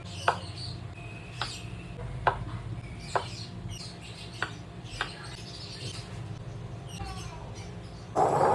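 Sharp, evenly spaced taps, about one a second, over a steady low hum, with a louder rustling burst near the end.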